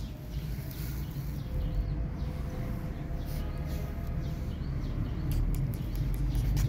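Outdoor ambience: a low rumble that grows louder in the second half, with faint bird chirps and a few small clicks.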